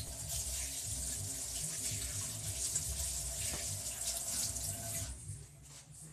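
Water running from a tap in a steady hiss, turned off about five seconds in.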